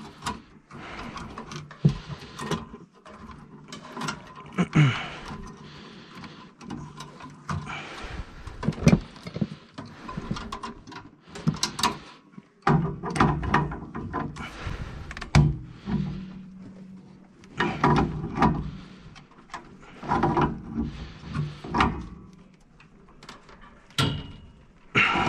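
Adjustable wrench working on a furnace gas valve's fittings as the valve is snugged tight: irregular metal clicks and knocks with handling noise between them.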